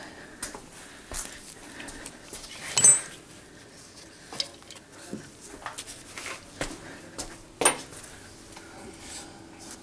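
Metal hand tools and lathe parts clinking and knocking as they are handled and set down on a cluttered toolbox top. Two sharper metallic clanks ring briefly, one about three seconds in and one about three quarters of the way through.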